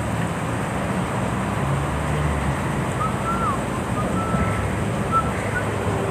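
Steady rushing noise of a flowing river, with a low hum underneath and a few faint thin high whistles in the middle.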